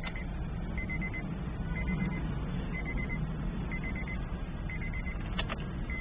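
A short high electronic chime beeping about once a second over a low steady rumble, with a sharp click a little before the end.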